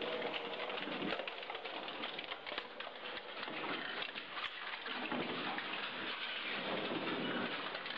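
Industrial shredder's cutters working through scrap metal under steel drums: a dense, steady crackle of many small clicks and rattles.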